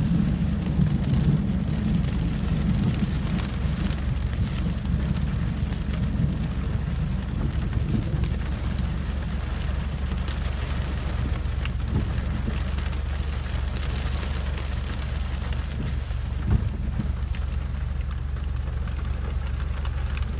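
Steady rain falling on and around a car, heard from inside through a cracked window, with scattered drop taps and a low rumble that is strongest in the first couple of seconds.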